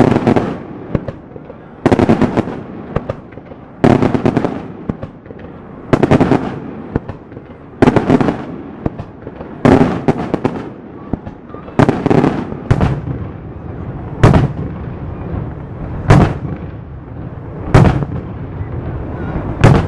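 Daytime aerial firework shells bursting overhead: loud sharp bangs about every two seconds, each followed by a rumbling echo. The bangs come a little closer together and sound sharper near the middle.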